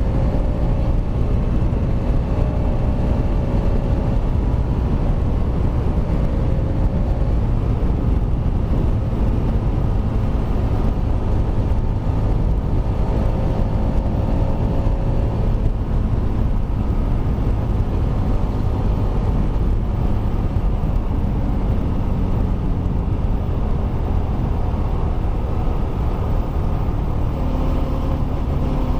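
Kawasaki Rouser RS200's single-cylinder engine running steadily while the motorcycle is ridden, a loud, even rumble with no marked revving.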